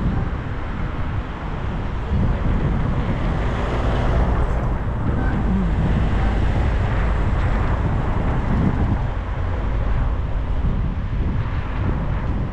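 Wind rumbling on the microphone during a bicycle ride along city streets, over a steady noise of road traffic.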